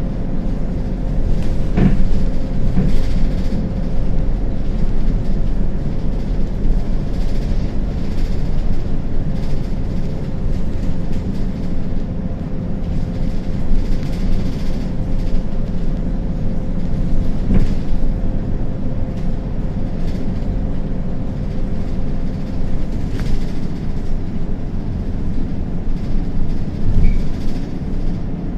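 Samco City CNG city bus running on the road: a steady engine and road rumble with a thin steady whine that stops about 23 seconds in, and a few brief rattles or knocks.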